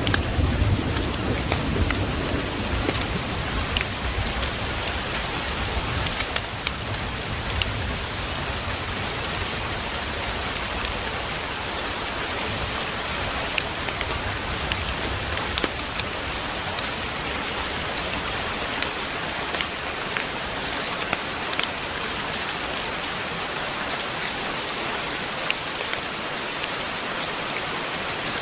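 Steady heavy rain hiss with scattered sharp clicks, and the low rumble of thunder dying away over the first several seconds.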